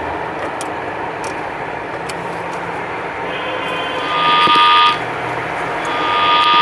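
Busy city-street traffic noise, joined in the second half by a loud, steady two-note tone, once for about a second and again for about two seconds.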